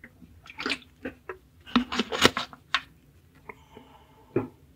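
Sharp metallic clicks and rattles from a brass mechanical clock movement being handled while its mainspring is let down, with the anchor removed. There is a cluster of clicks in the middle and one louder click near the end.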